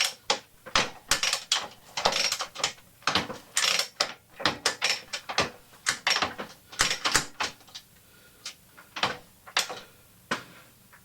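Norton Commando gearbox being shifted by hand back down through the gears to neutral: a run of irregular sharp mechanical clicks and clacks from the gear change and selector, busy at first and thinning out near the end.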